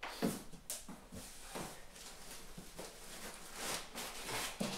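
Cardboard box and polystyrene foam packing being handled while unpacking a loudspeaker: rustling and scraping with a series of short knocks.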